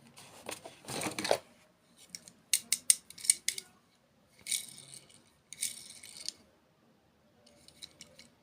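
Close-miked handling of sweets and their packaging: bursts of crisp clicks and rattles, then two short crinkling rustles.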